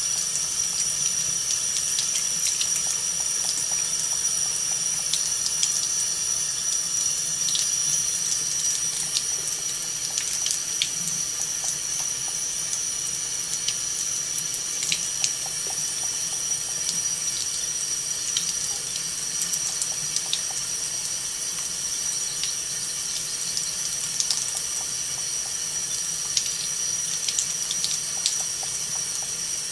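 Kitchen faucet running in a thin steady stream, the water splashing down with scattered small ticks and spatters as it breaks on the cat drinking from it.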